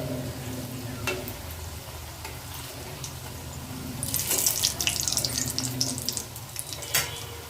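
Kochuri deep-frying in oil over a low flame, with a louder burst of crackling sizzle partway through as they are turned, and two sharp taps of a metal spoon against the pan, about a second in and near the end.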